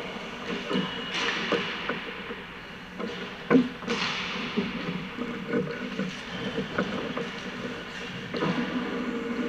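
Ice hockey skates scraping and carving on the ice, with scattered clacks of sticks on pucks and one louder sharp crack about three and a half seconds in.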